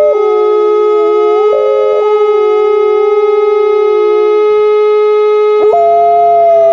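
An air raid siren holds a steady tone while an Alaskan Malamute howls along with it in long, wavering howls. The howling breaks off for about a second near the end, then a new howl starts over the siren.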